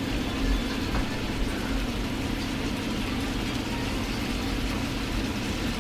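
Steak strips sizzling steadily in butter and garlic in a frying pan, over a steady low hum.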